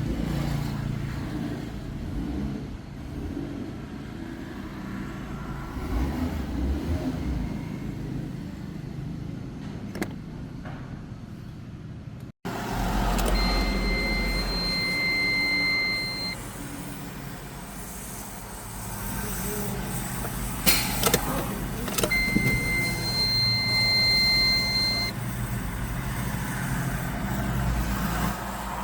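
Car engine running steadily, with an edit cut partway through. Later, two steady high-pitched electronic beeps, each about three seconds long, sound over it, and a few sharp clicks come between them.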